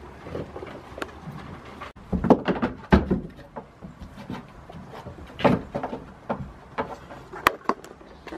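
Irregular knocks and thumps with some rustling, loudest in a cluster about two to three seconds in and again past the halfway mark, with a sharp click near the end.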